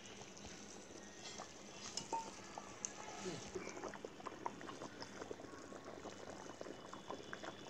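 Thin mutton curry gravy boiling in a kadai: soft, faint bubbling with scattered small pops.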